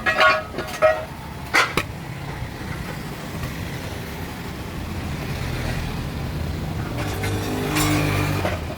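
Old car engine running with a steady low rumble, after a few sharp clicks in the first two seconds. It grows louder for a moment about seven seconds in.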